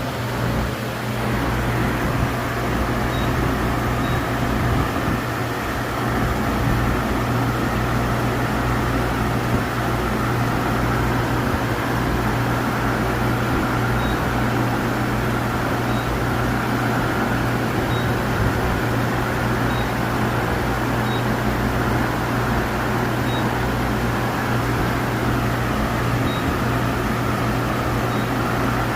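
CNC milling machine running with a steady hum and a constant higher whine.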